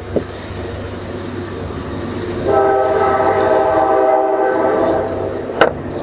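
A horn sounds about two and a half seconds in and holds one steady chord of several tones for about two and a half seconds, over a low steady rumble. There is a sharp click near the start and a louder one near the end.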